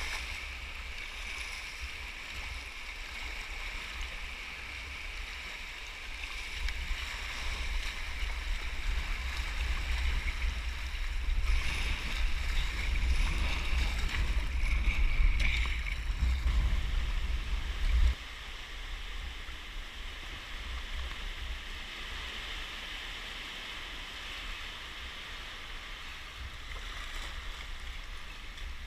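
White water rushing and churning around a sea kayak, with a heavy low rumble of buffeting on the camera microphone that swells through the first half and cuts off suddenly about two-thirds of the way through.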